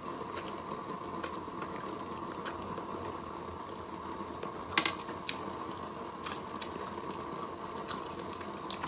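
Close-up eating sounds from a woman biting into and chewing a nori-wrapped sushi roll: a few short sharp clicks and smacks, the strongest about five seconds in, over a faint steady hum.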